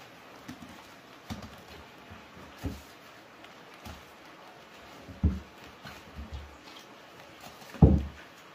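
Peeled bamboo shoots set down one by one onto a pile on a hard floor: about five dull knocks, the loudest near the end.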